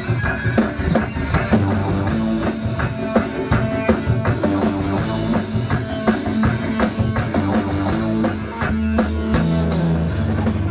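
Live indie rock band playing electric guitar and drum kit with a steady beat.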